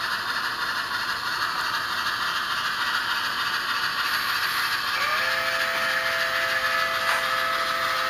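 Sound decoder of a Bachmann HO geared steam logging locomotive playing its steady hissing, rattling running sound through the model's small speaker. About five seconds in, a two-note steam whistle starts and is held to the end.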